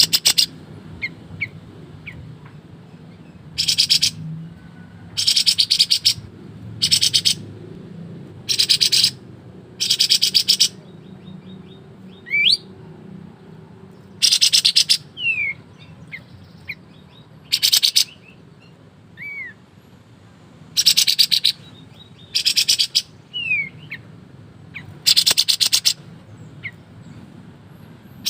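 Kapas tembak bulbul singing in loud, very rapid rattling trills, each burst lasting about half a second to a second and repeated every one to two seconds, with short gliding whistled notes in the gaps.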